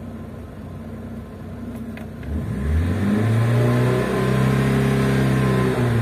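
Car engine idling quietly, then revved about two seconds in: the pitch rises and holds at a raised speed, with a brief dip about four seconds in.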